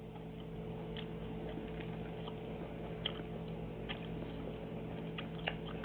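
A person chewing a hoagie sandwich with the mouth close to the microphone: scattered faint clicks and smacks, over a steady low hum.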